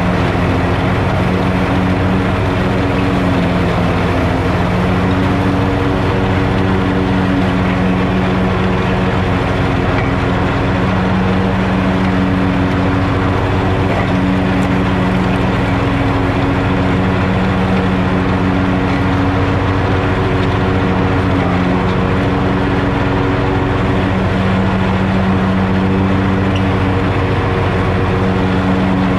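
Hustler Fastrak zero-turn mower with a 54-inch deck running steadily, its engine pitch wavering slightly, with the blades engaged and cutting grass.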